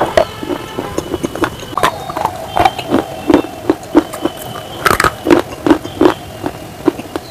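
Close-miked chewing of a hard edible clay (shale stone) bar: a run of sharp dry crunches, about two to three a second, as the pieces break between the teeth.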